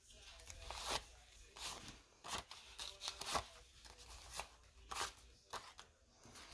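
Paper banknotes rustling as they are handled by hand and sorted into order, a series of short, irregular, faint rustles.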